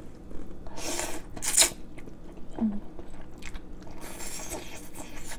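A person slurping noodles from a bowl of noodle soup with chopsticks: two short, loud slurps about a second in and a longer slurp near the end, with chewing in between.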